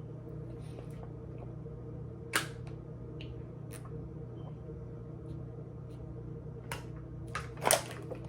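A few short, sharp clicks and taps over a steady low hum, the loudest about two and a half seconds in and several more near the end.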